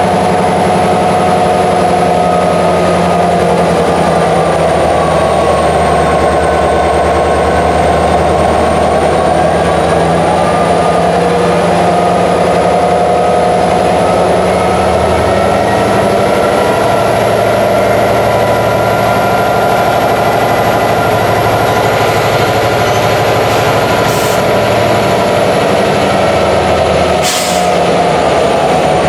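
EMD 16-710 diesel prime mover of a freight locomotive running steadily, its pitch sagging slightly and recovering, with a thin high whine over the engine note. Two short hisses of air come near the end.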